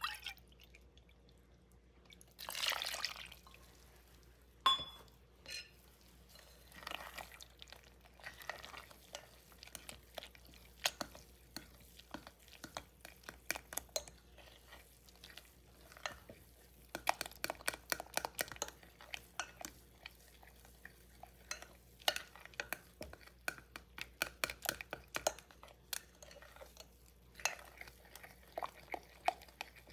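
A metal spoon stirring thick pancake batter in a glass Pyrex mixing bowl: wet stirring with many quick taps and clinks of the spoon against the glass, more frequent in the second half. A brief pour of oat milk about three seconds in.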